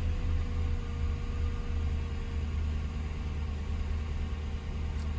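2009 Mercury Grand Marquis's 4.6-litre V8 idling with a steady low hum.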